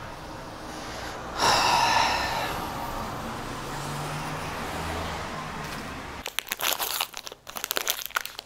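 A rushing whoosh swells about a second and a half in and fades. From about six seconds in comes the dense, irregular crinkling and tearing of plastic wrappers as two glazed curd cheese snack bars are unwrapped.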